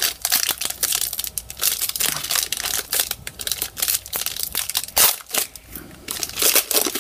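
Foil wrapper of an Upper Deck Artifacts hockey card pack crinkling and tearing as it is ripped open by hand: a rapid, uneven run of crackles, with the loudest rip about five seconds in.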